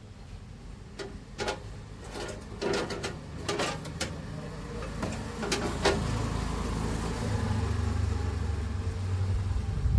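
Several sharp clicks and knocks, then a steady low machine hum starts about five seconds in and builds, running strongly near the end.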